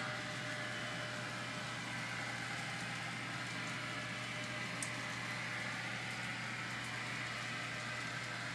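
Model trains running on a layout: a steady hum and whir of small electric locomotive motors and wheels on rail, with one short click about five seconds in.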